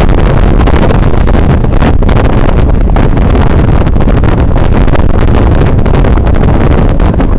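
Loud wind buffeting the camera microphone on the deck of a moving boat, in constant gusts that drown out other sound.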